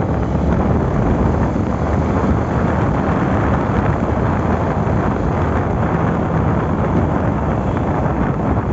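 Steady wind rush buffeting the microphone on a moving motorcycle, mixed with the bike's engine and tyre noise.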